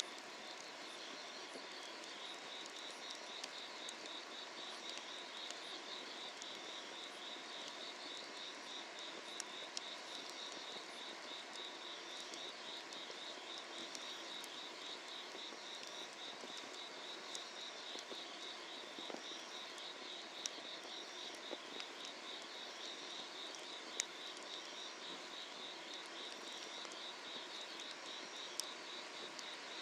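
Summer night insects chirping in a steady, rapidly pulsing trill, with a wood fire crackling now and then in sharp single pops.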